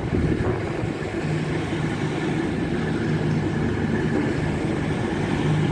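Class 66 diesel locomotive's two-stroke EMD V12 engine running steadily at low power as the locomotive reverses slowly.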